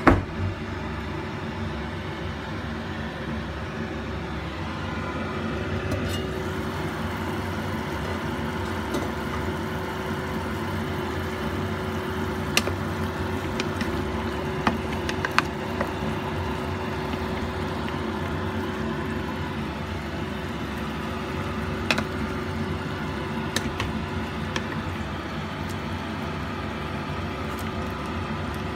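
Chicken and pork cooking in a stainless steel pot, under a steady mechanical hum with a constant tone, with a few sharp knocks of a wooden spatula against the pot as it is stirred, mostly in the middle and once more later.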